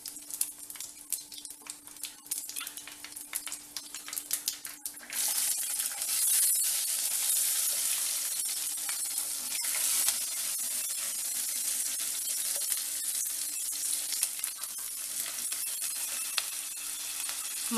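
Mustard, cumin and fenugreek seeds crackling and popping in hot sesame (gingelly) oil in a clay pot. About five seconds in, shallots and garlic go into the oil and it breaks into a loud, steady sizzle as they fry and are stirred.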